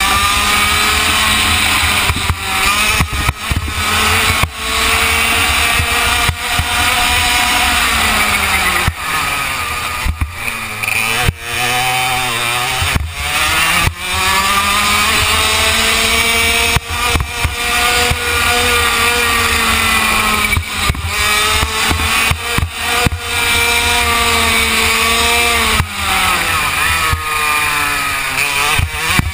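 Go-kart engine heard from on board, running hard, its pitch climbing along the straights and dropping sharply several times when the driver lifts for corners.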